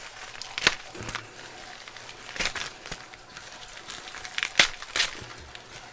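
A tightly sealed package being worked open by hand: scattered crackles and sharp snaps of packaging. The loudest snaps come about two-thirds of a second in and again around four and a half seconds in.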